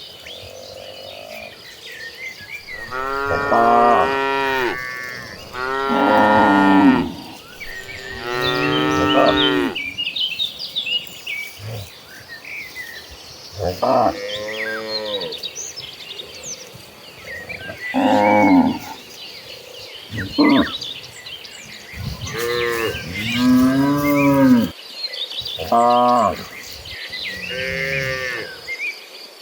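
A herd of cattle mooing again and again, about ten long calls with some overlapping, while birds chirp and an insect keeps up a steady high drone behind.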